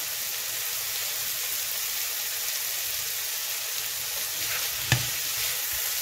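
Goat meat with onion and pepper frying in oil, with a steady sizzle. One sharp knock comes about five seconds in.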